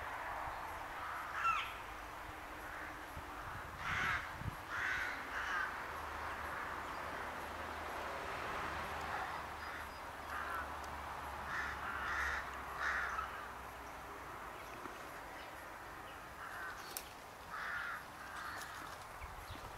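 Crows cawing repeatedly, in groups of two or three harsh calls. One short whistled bird note comes about a second and a half in.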